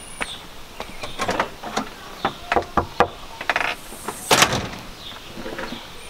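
A string of irregular knocks and clicks, the loudest about four and a half seconds in.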